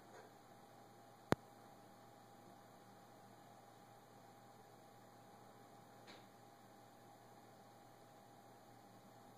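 Near silence: a faint steady hum of room tone, broken by one sharp click about a second in.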